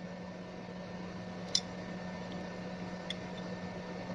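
A steady low electrical hum, with two faint light clicks from small parts and tools being handled, about a second and a half apart.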